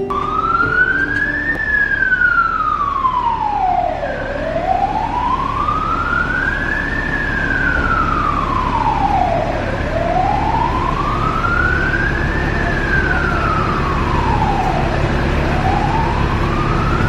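A siren wailing, its pitch rising and falling slowly, about one full sweep every five and a half seconds, over a steady low background rumble.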